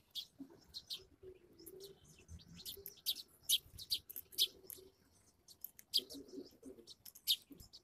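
Sparrows chirping: many short, sharp, high chirps coming irregularly several times a second, some louder than others.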